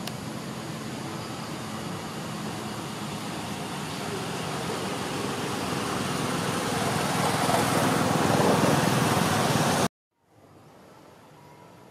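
A steady rushing noise that grows louder for about eight seconds, then cuts off abruptly near the end, leaving only a faint hiss.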